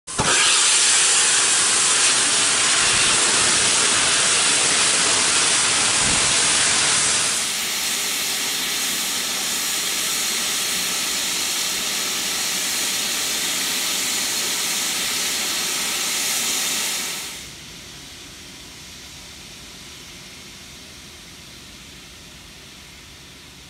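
Steam hissing from steam locomotives, first A1 Pacific No. 60163 Tornado, then engines in steam on shed. A loud, steady hiss drops a step about seven seconds in and falls to a much quieter hiss at about seventeen seconds.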